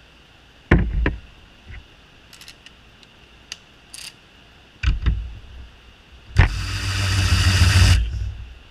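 Snap-on cordless 3/8-inch ratchet breaking loose a nut torqued to 45 foot-pounds: a sharp crack, then its motor whirring for about a second and a half as it spins the nut off. Before it, a few knocks and clicks of tools on metal.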